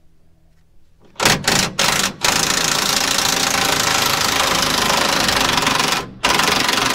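A DeWalt impact wrench hammering at a bolt to break it loose. First come three short blips, then a long steady run of rapid impacts, a brief stop about six seconds in, and another burst near the end.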